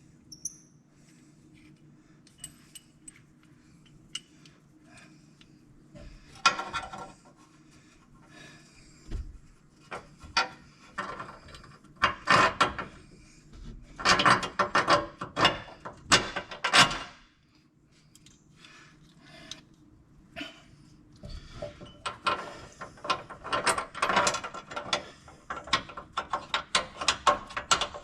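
Hand ratchet wrench clicking in quick bursts, with pauses between runs, as bolts are run in to fasten a pickup's front bumper to its brackets.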